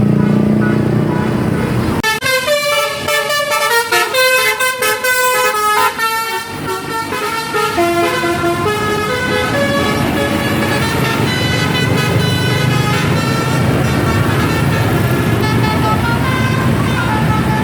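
Bus telolet horn, a Basuri multi-tone air horn, playing a quick melody of stepped notes for several seconds. Bus engine and road noise run before and after it.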